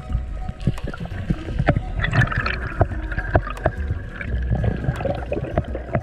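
Underwater sound of a camera moving through the water over a coral reef: a low rush of water with many sharp, scattered clicks.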